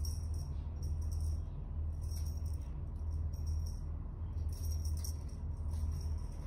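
A jingling rattle shaken in short bursts about once a second, over a low steady hum.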